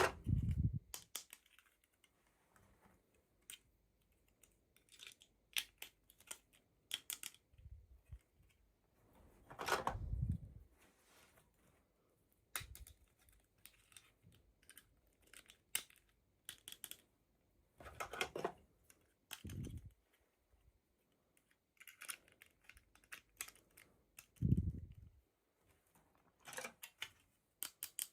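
Irregular small clicks, taps and short rustles of toy packaging being handled and opened, with a few soft thumps.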